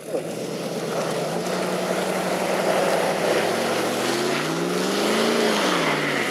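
Off-road vehicle's engine under load, holding a steady note, then climbing in pitch about halfway through and falling away near the end.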